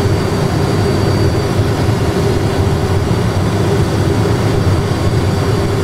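Steady cockpit background noise of an Airbus A320 full flight simulator on approach: the simulated engines and airflow together with the simulator's own fans make a constant low hum that does not change in level.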